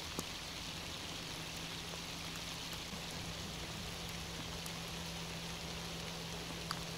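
Steady rain falling, an even hiss with a couple of faint drop ticks, over a faint steady low hum.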